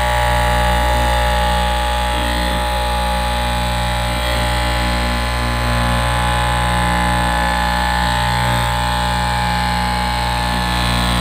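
Electric straight-knife cloth cutting machine running steadily, its vertical reciprocating blade cutting through a stack of fabric layers; a constant drone of several held tones.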